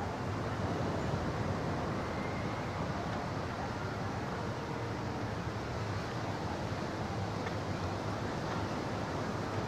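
Steady beach ambience: a constant wash of surf and wind, with no distinct events.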